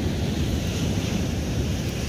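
Wind noise on the microphone over the steady wash of sea surf.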